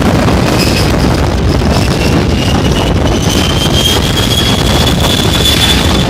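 Heavy wind buffeting the microphone, with a faint high whine from aircraft engines rising slowly in pitch through it.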